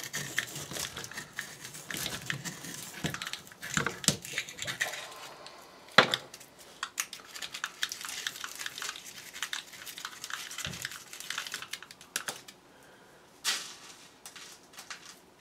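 A 5-inch canister firework shell being picked apart by hand: scraping, crinkling and scratching of paper and cardboard with scattered small clicks, and a sharp knock about six seconds in.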